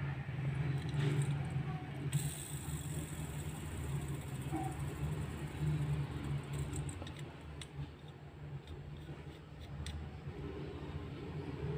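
A steady low hum, with a few faint light clicks and taps from a plastic-and-metal Beyblade top being turned over in the fingers, mostly in the second half.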